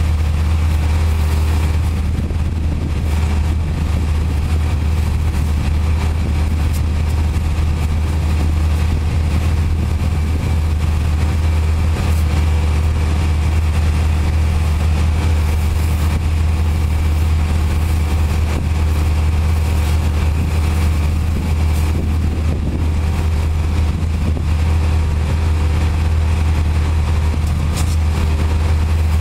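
Pressure-washer wand spraying a dump trailer's wheels, a steady hiss of water over a constant low machine drone.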